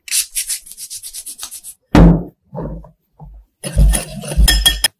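A quick run of soft brushing strokes, like hands rubbing together, then a few dull thumps and a clatter of knocks with ringing clinks as a wooden spatula stirs dry flour and sugar in a glass bowl, striking the glass.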